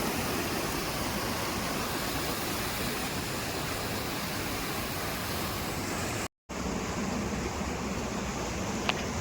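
Steady rush of a waterfall running heavy after a downpour. It cuts out for a moment about six seconds in and comes back duller, with a single short click near the end.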